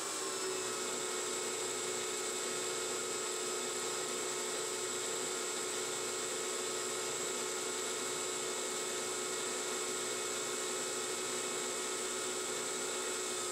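Central Machinery 9x20 benchtop metal lathe, CNC-converted and belt-driven, turning at about 700 rpm while a carbide tool takes a turning cut on a steel workpiece. It gives a steady, even whine with a high hiss above it that holds without change.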